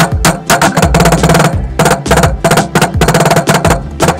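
Background music with a fast percussive beat over a steady bass line.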